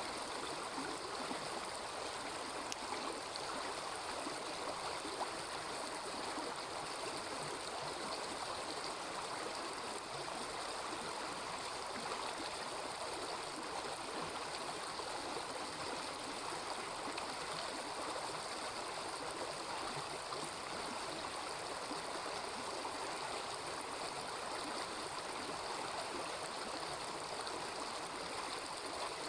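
Small river babbling steadily, an even, unbroken rush of running water, with a few faint clicks now and then.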